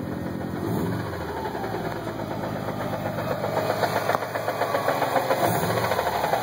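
Subaru WRX turbocharged flat-four idling in neutral with the clutch engaged, carrying a rapid rattle that grows louder toward the end. The noise appears only with the clutch pedal released, and the owner suspects either a broken spring in the new Exedy stage one clutch disc or a bad throwout bearing.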